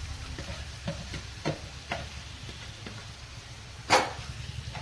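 Marinated chicken dropped into a frying pan of tomato-onion gravy, sizzling softly, while a metal spatula stirs and knocks against the pan a few times, the loudest knock about four seconds in.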